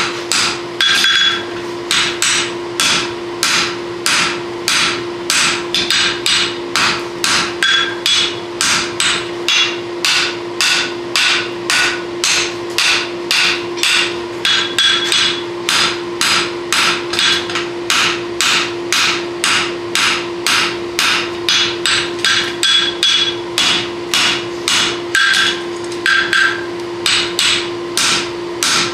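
Hand hammer striking a red-hot draft horseshoe on an anvil in a steady rhythm of about two to three ringing blows a second, drawing down the heel of the shoe to build a caulk. A steady low hum runs underneath.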